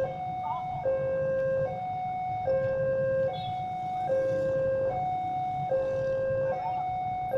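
Electronic two-tone warning alarm of a railway level crossing, alternating steadily between a low and a higher tone about every 0.8 seconds, over a low rumble.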